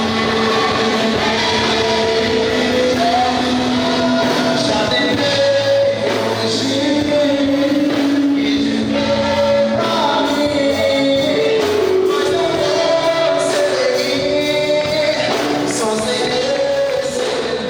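Gospel song, sung over instrumental accompaniment.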